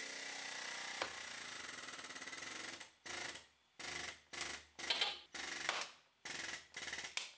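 Frame rack pulling tower's hydraulic pump chattering as it pulls the chain taut on a pulling bracket bolted to the door pillar's hinge mount. It runs steadily for about three seconds, then in a series of short bursts of about half a second each as the pull is eased on a little at a time.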